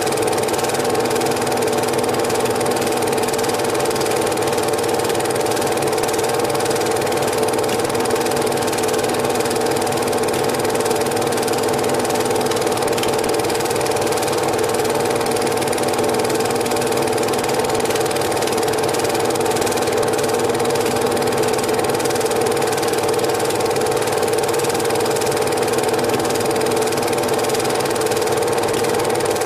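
Cine film projector running steadily: a constant mechanical whirr with a fast, even clatter from the film mechanism.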